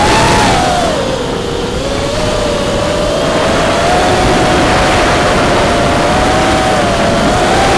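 FPV quadcopter's four brushless motors (Cobra CP2205 2300kv) spinning 5-inch DAL props, a buzzing whine over prop-wash and wind hiss, heard through the onboard camera. The pitch sags about a second in as the throttle eases, then climbs back and holds fairly steady with small swells.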